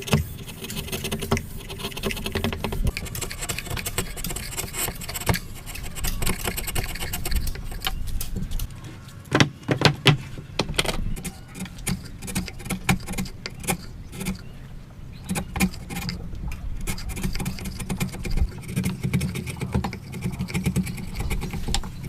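Hand woodworking tools cutting a joint: irregular scraping of wood with sharp knocks and taps, the loudest a quick run of knocks about ten seconds in.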